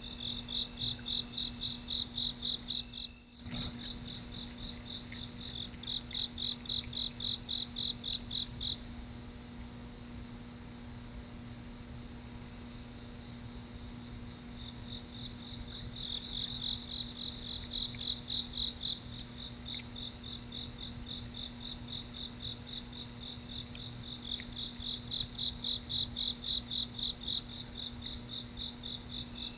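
Night insect chorus: a continuous high trill, with a lower pulsed call joining in bursts of a few seconds at about four pulses a second. About three seconds in, the sound briefly drops out and comes back with a click.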